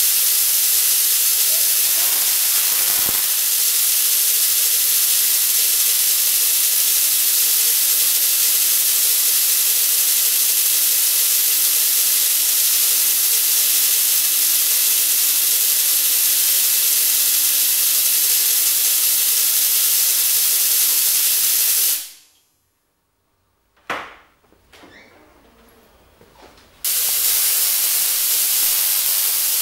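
Homemade Tesla coil running: a loud, steady hiss from its spark gap firing, with a steady hum under it. The sound breaks off about 22 seconds in, a short knock follows, and it starts again about five seconds later.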